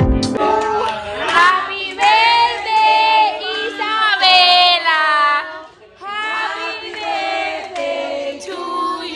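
A group of women and children singing together, with some hand-clapping. A snatch of electronic dance music cuts off at the very start.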